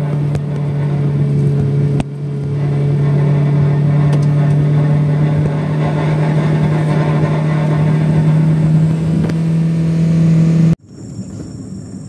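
Car engine running at a steady pitch while driving, a constant drone. It cuts off abruptly about eleven seconds in, leaving quieter road noise.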